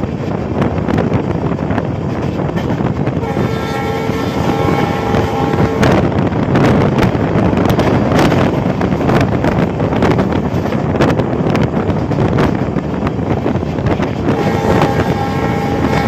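An Indian Railways express train running through a station at speed, heard from inside a coach: a steady rumble of wheels on the track with sharp clacks as the wheels cross rail joints and points. The locomotive's horn sounds twice, a blast of about three seconds starting some three seconds in, and another starting near the end.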